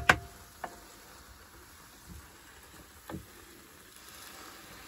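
Boiling water from a kettle pouring softly into a hot pan of couscous and vegetables, starting near the end. Before it come a few sharp knocks of a wooden spoon against the pan and a dull thump about three seconds in.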